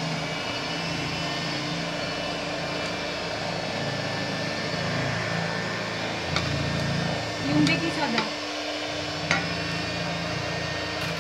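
Electric hand mixer running steadily as its beaters whisk batter in a bowl. A few sharp clicks in the second half, such as a wooden spoon knocking a steel mixing bowl.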